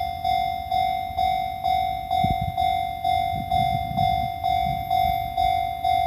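Japanese level crossing alarm ringing its repeated electronic bell tone, about two strikes a second. A Fuji Kyuko train's low rumble comes in about two seconds in and keeps going.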